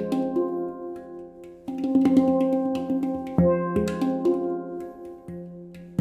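Handpan, a 10-note F Equinox tuned around a low F3 ding, played by hand in an improvisation: struck notes ring on and overlap. About three and a half seconds in the low F3 ding sounds, its F4 and F5 notes ringing with it.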